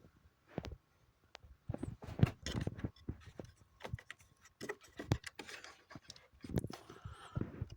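Handling noise from the opened-up coffee machine: irregular clicks, knocks and rubbing of its parts being moved and turned, with the sharpest knock about two seconds in.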